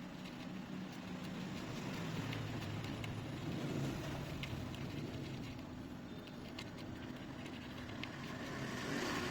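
Steady whir and rush of air from a small fan-driven tool, with a few faint light clicks scattered through it.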